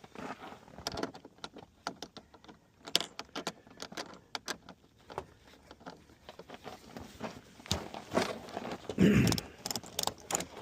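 Strap and clip hardware clicking and jangling in irregular handling sounds as a gear sled is hooked up and strapped down, with a louder rustle near the end.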